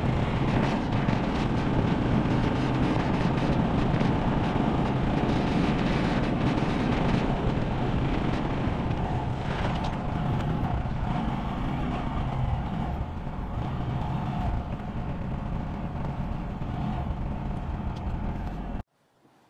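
Honda Monkey 125's single-cylinder four-stroke engine running steadily while the bike is ridden. It eases a little about halfway through and cuts off abruptly near the end.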